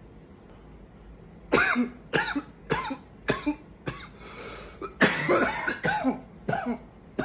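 A man's coughing fit: a quick run of coughs, about two a second, starting about a second and a half in. Halfway through comes a short hiss of breath, then a louder cluster of coughs and two more near the end.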